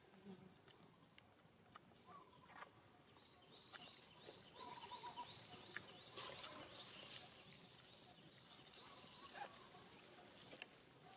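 Near silence: faint outdoor ambience with scattered small clicks and a run of faint, quick high chirps, like distant birds, from about three to six seconds in.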